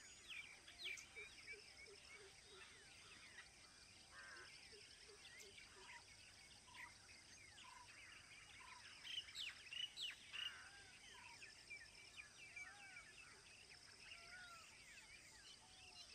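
Faint wild birdsong: many birds giving short chirps and arched whistled notes, with a burst of sharper chirps about nine to ten seconds in, over a steady high hiss.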